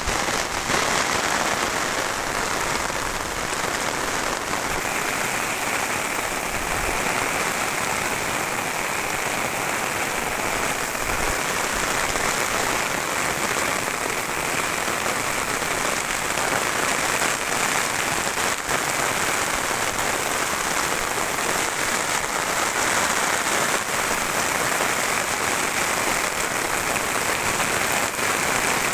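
Steady rain falling, a continuous even hiss with no letup.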